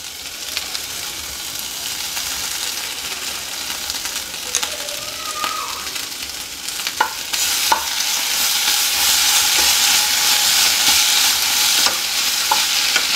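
Sliced vegetables with tomato ketchup sizzling in a non-stick frying pan while being stirred with a wooden spoon. The sizzle grows louder about seven seconds in, with a few sharp clicks around then.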